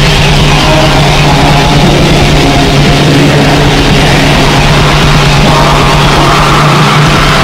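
Loud, heavily distorted punk music from an underground compilation: a dense, unbroken wall of distorted sound with a steady low drone under it.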